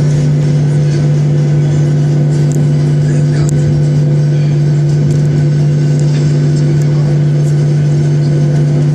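Boeing 737 jet engines idling while the airliner taxis, heard from inside the cabin: a loud, steady hum with a few higher overtones.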